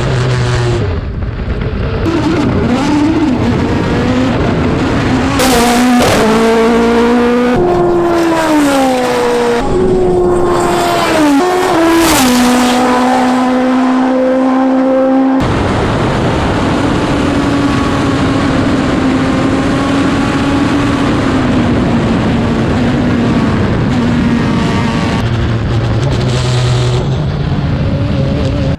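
Turbocharged Toyota 4A-GE four-cylinder in a Formula Atlantic race car running hard on track, its note climbing and dropping repeatedly through gear changes. About halfway through it switches abruptly to a steadier, slowly falling note.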